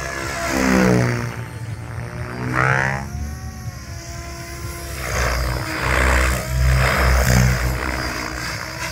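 Electric 700-size RC helicopter (Tron 7.0) flying 3D aerobatics: the motor and rotor whine drops in pitch as it sweeps past, rises again a couple of seconds later, then breaks into a quick series of swelling whooshes of rotor-blade noise with low thumps in the second half.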